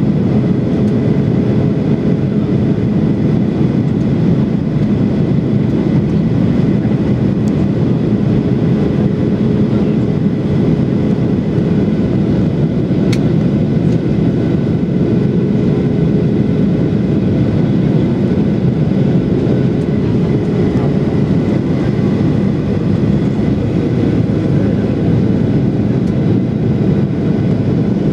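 Steady cabin noise of a Boeing 737-800 in flight: the even rumble of its CFM56-7B jet engines and the airflow, with a steady humming tone over it.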